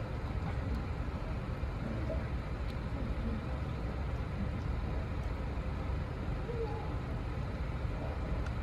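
Steady low outdoor rumble, like distant traffic, with faint scattered small clicks.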